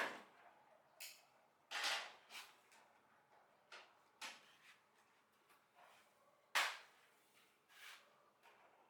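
Hard objects being handled and set down: about ten irregular clicks and knocks, the loudest about two-thirds of the way in.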